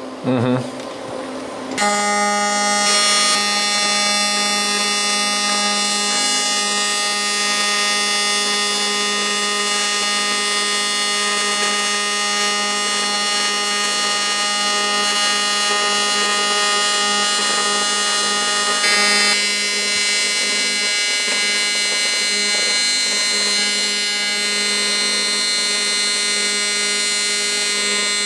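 AC TIG welding arc from an HTP 221 AC/DC welder, a steady buzz that starts about two seconds in, while brazing aluminum bronze filler onto preheated cast iron.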